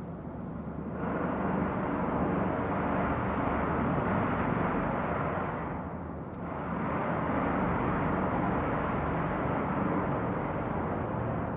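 Loud, sustained trumpet-like noise from the night sky, heard in all directions with no visible source. It swells up, fades briefly about halfway through, then swells again.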